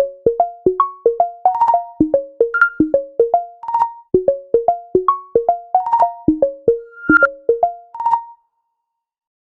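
Samsung Galaxy ringtone: a quick melody of short, quickly fading notes, about five a second, one phrase played twice, stopping a little over eight seconds in.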